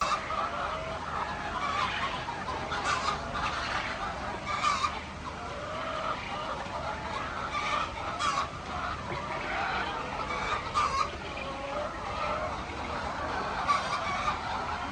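A flock of laying hens clucking continuously, with sharp squawks standing out every second or few.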